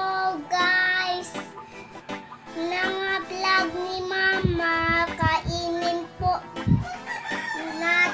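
A young girl singing a tune in a high voice, holding some notes.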